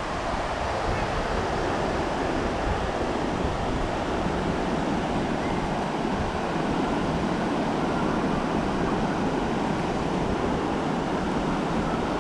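Heavy rain pouring steadily: an even, unbroken wash of noise.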